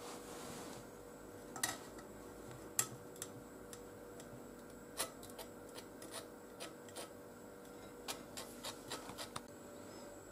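Table knife spreading cream cheese on a small crisp toast: faint scrapes with scattered light clicks of the knife, more of them in the second half.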